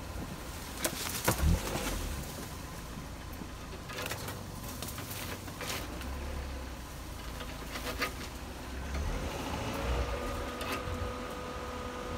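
Modified Dodge Neon driving slowly over a rough dirt trail: a low engine and road rumble with the body and suspension knocking over bumps, the loudest knocks about a second and a half in. A steady hum sets in about ten seconds in.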